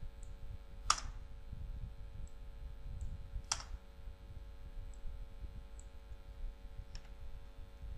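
Computer keystrokes: two sharp key clicks, about a second in and about three and a half seconds in, with a few faint clicks between, over low steady background noise.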